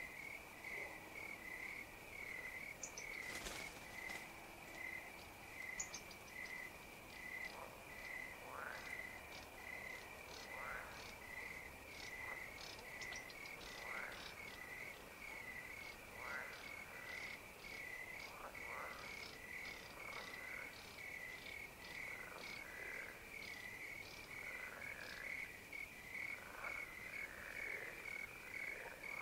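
Pond night chorus: crickets chirping in a steady rhythmic pulse, with frogs calling over them in short calls that slide down in pitch every second or two. A single sharp click about three and a half seconds in.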